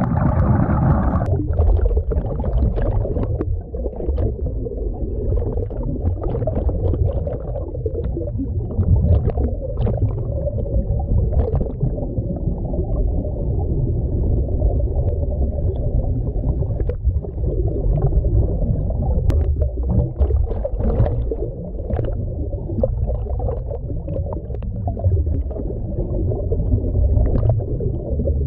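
Muffled low underwater rumble picked up by a submerged camera, with scattered faint clicks and knocks.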